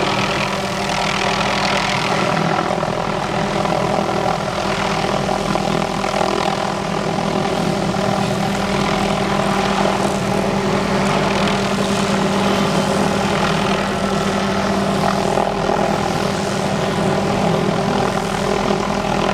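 Hughes 500D helicopter running steadily nearby, its rotors and turbine engine making an unbroken drone.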